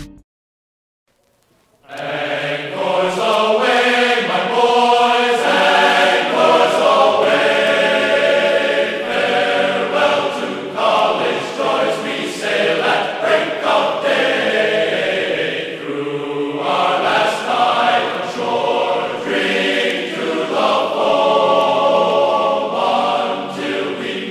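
Choral singing: several voices holding and sliding between long notes, starting about two seconds in after a brief silence.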